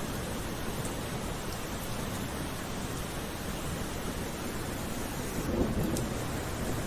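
Steady rain falling as an even hiss, with a low rumble underneath and a brief swell about five and a half seconds in.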